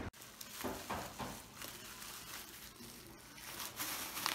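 Faint rustling and a few light knocks from cardboard boxes and plastic packaging being handled, over low room tone.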